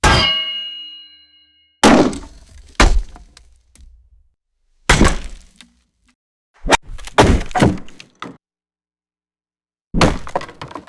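Axe sound effects: a ringing metallic clang that dies away over nearly two seconds, followed by a series of heavy, sharp axe hits in short groups, some single and some in quick double or triple strikes.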